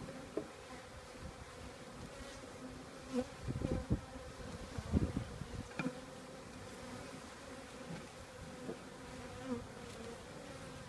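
A mass of honeybees buzzing in a steady hum, with a few low bumps near the middle, the loudest about five seconds in.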